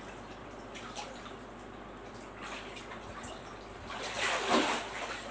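Water sloshing and splashing in a shallow above-ground frame pool as a child wades through it and scoops toys out, with a louder splash about four and a half seconds in.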